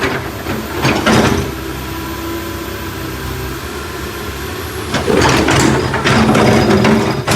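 Backhoe's diesel engine running with a steady hum. Louder, rough, clattering noise comes over it about a second in and again from about five seconds on, as the machine works.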